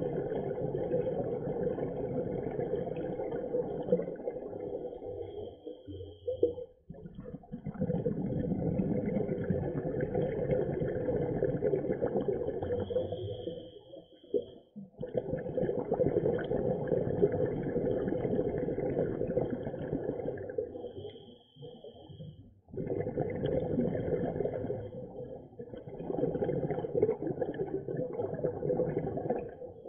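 Scuba diver breathing on a regulator underwater: four long bursts of exhaled bubbles, each lasting several seconds, with short quiet gaps between breaths.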